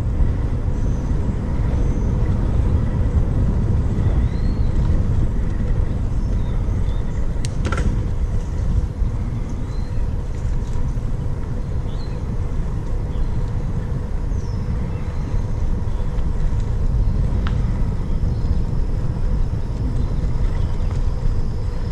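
Wind and rolling noise from a moving bicycle rumbling steadily on the microphone of a bike-mounted camera on an asphalt trail. Faint bird chirps sound above it, and there is a sharp click about a third of the way in and another near the end.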